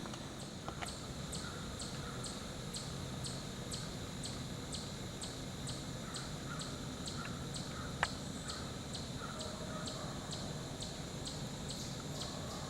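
Woodland outdoor ambience: a high, thin chirp repeating evenly about three times a second, with faint lower calls now and then and a single sharp click about eight seconds in.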